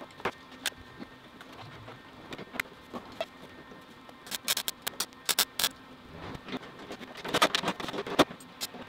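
Short crackling bursts and sharp metallic clicks, bunched in two clusters around the middle and near the end, as tack welds are laid along the seam of a steel fender flare.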